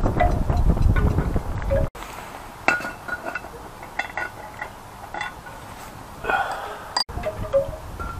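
Light metallic chiming and clinking, like a wind chime, over wind buffeting the microphone. About two seconds in, the wind rumble drops away abruptly, leaving quieter scattered clinks and ticks. Near the end the wind and the chiming return.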